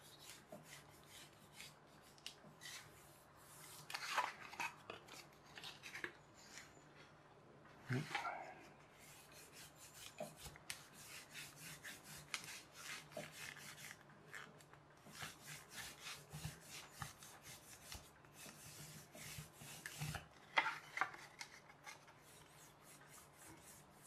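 A pencil rubbed quickly back and forth along the edge of polystyrene foam from a pizza tray, a quiet run of scraping strokes. The edge is being pressed flat and rounded into the leading edge of a glider wing. A few louder scrapes or knocks stand out among the strokes.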